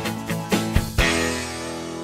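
Background music: a run of quick plucked notes, then, about a second in, a chord that rings on and slowly fades.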